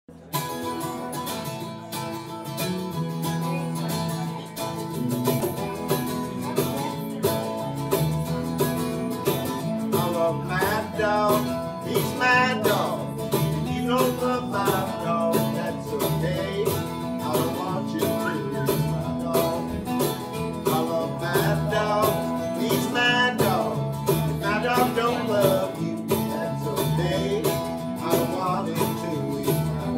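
Country-rock band playing an instrumental intro live: acoustic and electric guitars strumming a steady beat over a low bass line. From about ten seconds in, a lead guitar plays gliding, bending lines over them.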